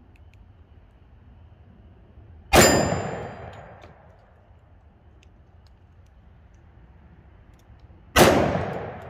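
Two shots from a 10mm pistol loaded with Underwood 200-grain hardcast rounds, about five and a half seconds apart. Each sharp report is followed by an echo that dies away over about a second.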